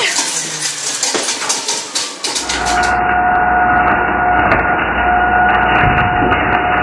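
Countertop blender running with a smartphone's fragments inside: a gritty rattling grind for about the first two seconds. Then a steady motor drone with a constant whine.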